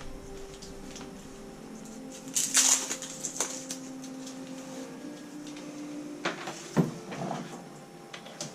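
Handling noises while a laptop's power brick and charging cable are connected: a few rustles and sharp plastic knocks and clicks, the loudest about two and a half seconds in and another near the end, over a faint steady hum.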